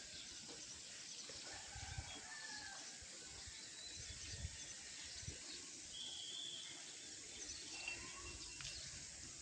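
Faint open-air ambience with a steady hiss and a few short, distant bird calls scattered through it, one a higher note about six seconds in. A few low bumps on the microphone break in now and then.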